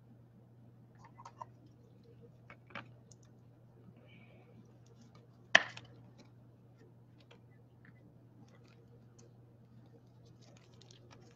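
Hands handling trading cards and their packaging on a table: scattered faint clicks and taps, with one sharp knock about halfway through, over a low steady hum.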